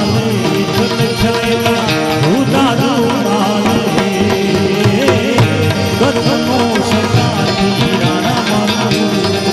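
Instrumental passage of a Gujarati devotional bhajan: a gliding melody over steady rhythmic drumming.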